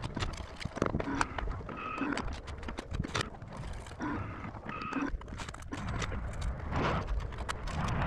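Tower crane hoisting and swinging an empty concrete bucket: irregular clanks and knocks over a low rumble.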